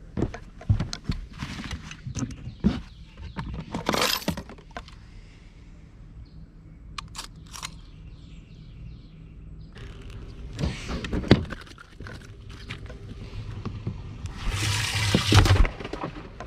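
Handling noise on a fiberglass bass boat: scattered knocks and clatter of gear on the deck, with a short rush of noise about four seconds in and a longer one near the end.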